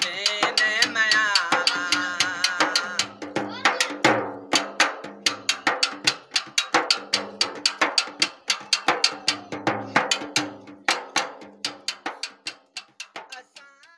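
Metal pot beaten by hand as a drum in a fast, even rhythm of about five strikes a second, each strike ringing, fading out over the last couple of seconds. A man's singing voice carries over the first few seconds, ending a line of the naat.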